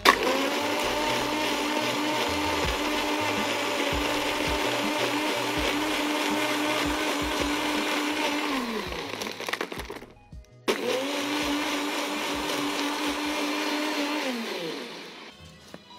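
NutriBullet personal blender running, blending ice with cream and liqueurs: one steady run of about nine seconds that winds down, a brief stop, then a second run of about four seconds that winds down near the end.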